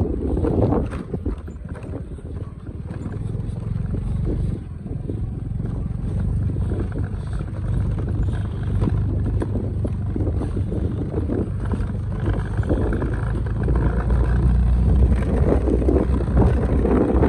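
Motorcycle engine running steadily at low speed on a rough, stony dirt track, with frequent knocks and rattles from the bumps and wind buffeting the microphone, the wind growing louder near the end.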